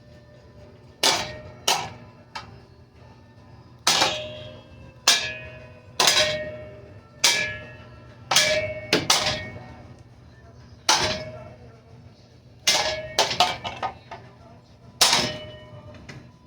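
A metal pedestal-fan pole striking a Hampton Bay Hugger ceiling fan: about fifteen sharp clangs, each with a short metallic ring, some spaced a second or more apart and some in quick runs of three or four. A low steady hum runs underneath.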